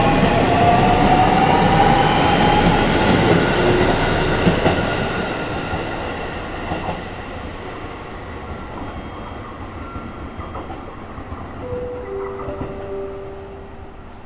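JR Central 313 series electric train pulling away, its Toshiba VVVF inverter whine rising in pitch as it accelerates, with wheel and rail noise. The sound fades steadily as the train moves off.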